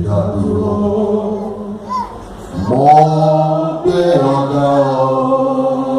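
Voices chanting together in long held notes, pausing briefly about two seconds in and then taking up the chant again.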